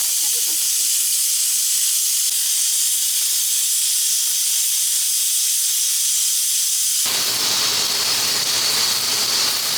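Steady hissing of food cooking on the stovetop. About seven seconds in it changes suddenly to a fuller, louder sizzle of frying in an oiled pan.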